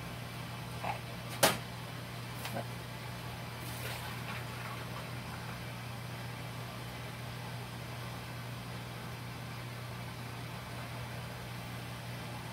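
Glass canning jars clinking against a metal jar lifter and the water-bath canner as they are lowered in. There are a few sharp clinks in the first four seconds, the loudest about a second and a half in, over a steady low hum.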